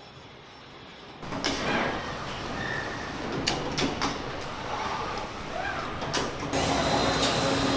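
Car factory machinery noise: clanks and knocks over a steady hiss. It starts suddenly about a second in and grows louder about six and a half seconds in.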